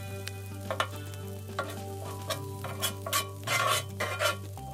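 Metal spatula scraping and scooping fried rice across the steel top of a Blackstone griddle, about seven short scrapes with a longer one about three and a half seconds in, over the sizzle of the rice frying.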